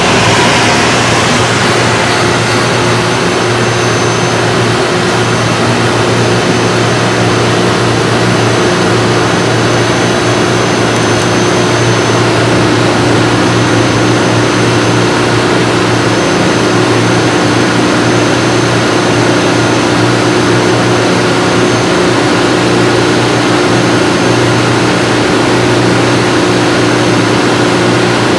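Metro-North commuter train running, a loud steady drone with a faint high whine over it and no change in level.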